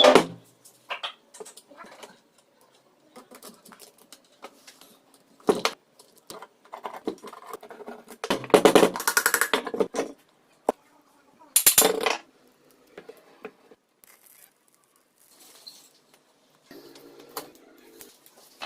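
Small metal parts and tools being handled: scattered clinks and knocks, with two longer clattering scrapes, the first about eight and a half seconds in and the second around twelve seconds.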